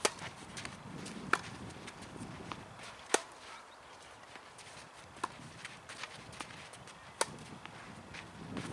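Tennis ball being struck by rackets and bouncing on a clay court: single sharp pops a second or several seconds apart, the loudest about three seconds in and another about seven seconds in.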